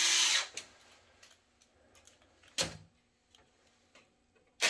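Cordless electric screwdriver driving small mounting screws into a fax modem board, in short runs of motor whine: one ending about half a second in, a brief one in the middle, and another starting near the end. The screws are only run down snug, not cranked tight.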